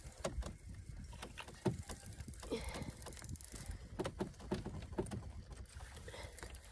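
Spinning reel being cranked in against a hooked fish: quiet, irregular clicks and small knocks of the reel and rod handling over a low rumble.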